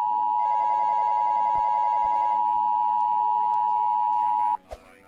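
Emergency Alert System attention signal: a loud, steady two-tone alarm (853 and 960 Hz together) that cuts off suddenly about four and a half seconds in, the signal that an emergency broadcast message follows. A fainter warbling tone sounds beneath it for the first couple of seconds.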